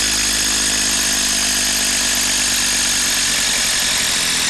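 Hilti brushless cordless impact driver running steadily at full speed in reverse, backing a long TimberLOK screw out of a log.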